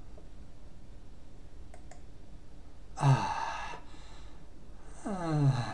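A man's voice in two breathy, voiced sighs, about three and five seconds in, each falling in pitch. A couple of faint mouse clicks come before them.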